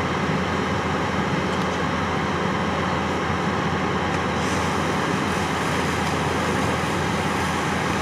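Fire engine idling, a steady, unchanging engine drone.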